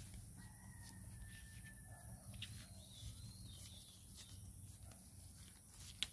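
Near silence: faint outdoor ambience with a low rumble and a faint thin whistle for about two seconds, then a single sharp click near the end.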